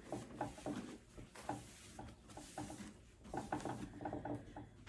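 Wet squelching and scraping of stringy pumpkin innards being pulled loose from the opened pumpkin. The sound is a string of short, irregular clicks and squishes.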